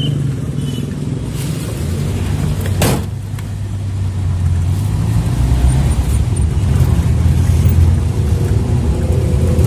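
Angkot minibus engine heard from inside the cabin, pulling away and running up through the gears, its low hum growing stronger. A single sharp knock about three seconds in.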